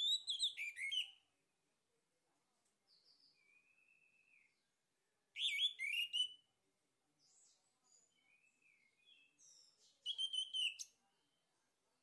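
Male orange-headed thrush singing: three loud, quick phrases of high, rapidly changing notes about five seconds apart, with softer, thinner phrases in between.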